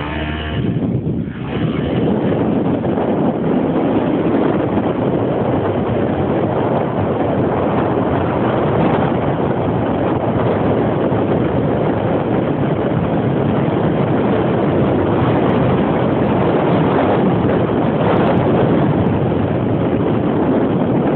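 A moving quad bike: steady rushing wind noise on the microphone mixed with the bike's engine, growing louder about two seconds in as the bike picks up speed, then holding steady.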